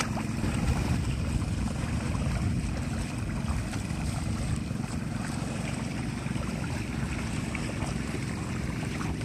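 Wind rumbling steadily on the microphone, over the sloshing of wooden push weeders (landak) worked through the flooded rice paddy's mud and water.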